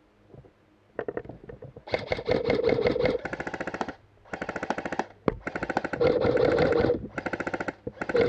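Electric airsoft rifle (AEG) firing on full auto: a string of about seven short bursts of rapid, evenly spaced shots in quick succession, starting about a second in, with the gearbox motor humming under several of them.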